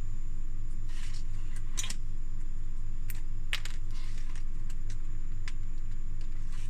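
LEGO Technic plastic parts clicking as friction pins and a beam are pressed into place: a few sharp snaps and clicks, the loudest about three and a half seconds in, over a steady low hum.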